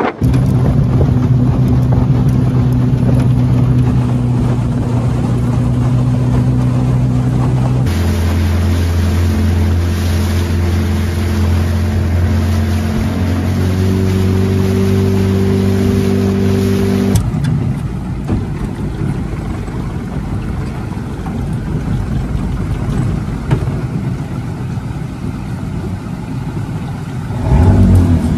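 Outboard motor driving a small aluminium boat at speed, a steady hum with wind and water noise. The engine note changes abruptly about a third of the way in, and from a little past halfway the steady hum gives way to a rush of wind and water.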